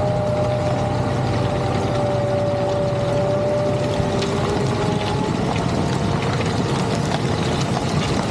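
Fendt 936 tractor's diesel engine running steadily under load while pulling a plough, with a steady whine over a low hum.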